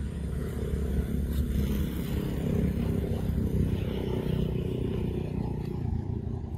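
A motor vehicle's engine running, a steady low rumble that is a little louder in the middle.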